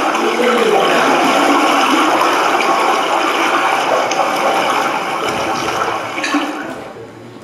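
Rushing, bubbling water sound effect played over a hall's loudspeakers as stage water for a dip, fading out near the end.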